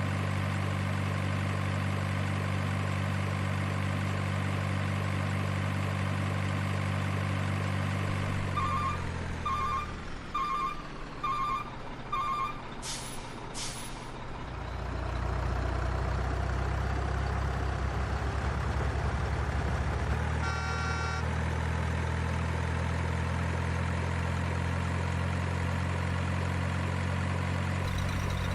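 Simulated heavy truck sounds from an RC model truck's sound unit: a diesel engine idling steadily, then five reversing beeps about nine seconds in, followed by two short air-brake hisses. The engine note then changes as the truck moves off, with a brief tone near the middle, and settles back to a steady run.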